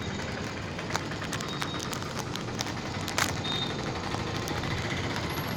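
Steady outdoor background noise, a low hum like distant traffic, with a few faint scattered clicks, the clearest about three seconds in.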